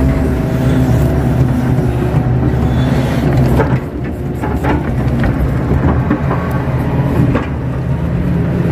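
Kato HD 512E excavator's diesel engine running steadily under hydraulic load, heard from inside the cab as the bucket dumps wet mud and swings back. It dips briefly about four seconds in, with a few sharp knocks.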